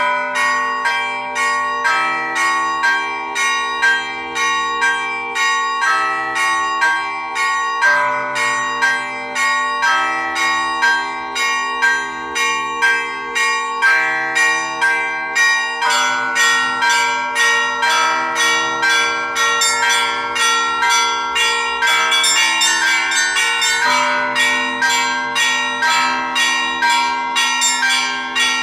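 Seven Orthodox church bells rung by an automated electromechanical striking system (an 'electronic bell ringer') in a weekday peal. Small bells strike quickly in a steady pattern, several strokes a second, over the lingering hum of the deeper bells. The high bells get busier a little after the middle.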